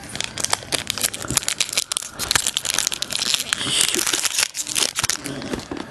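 Foil wrapper of a Pokémon trading card booster pack crinkling and crackling as it is handled and pulled at by hand to tear it open, a dense, irregular run of crackles.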